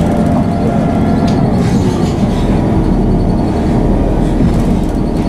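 Class 158 diesel multiple unit running, a steady diesel drone mixed with wheel-on-rail noise.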